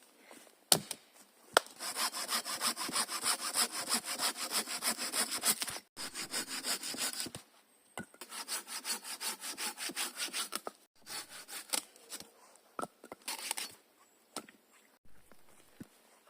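Hand saw cutting through wood with rapid, even back-and-forth strokes, in several runs with short pauses between them.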